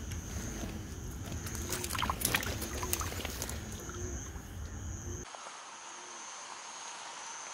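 Night ambience on a reservoir bank: a steady, thin, high-pitched insect trill over low rumble and scattered clicks and knocks from handling fishing gear. About five seconds in, the sound cuts abruptly to a quieter, thinner background.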